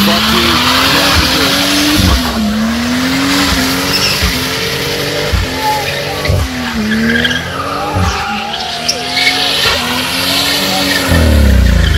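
A car doing skids: its engine revs hard, the pitch climbing, dropping sharply and climbing again every couple of seconds, over a continuous squeal of spinning tyres.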